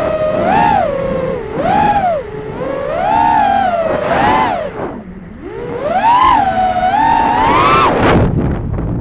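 6-inch FPV racing quadcopter's brushless motors whining, the pitch swooping up and down with the throttle. It sinks low about five seconds in and drops out briefly near the end, as the throttle is cut.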